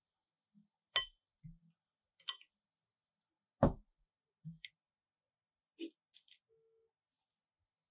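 A few separate light clicks and knocks from kitchen utensils being handled: a fine-mesh metal sieve over a glass mixing bowl is set aside and a wire whisk picked up. The loudest is a single knock about halfway through, with a quick cluster of small clicks near the end.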